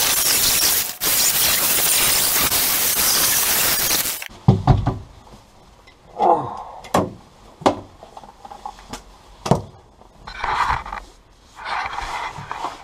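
Power sander running on the rusty steel floor pan with a loud, steady hiss, cutting off suddenly about four seconds in. Afterwards come scattered knocks and scrapes of tools and metal being handled.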